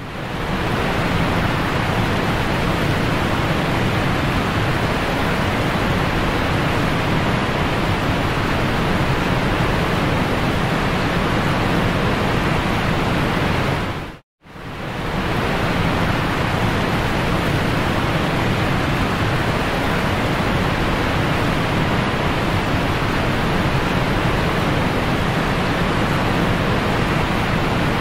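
Steady rushing water noise of a running aquarium, cutting out for a moment about halfway through.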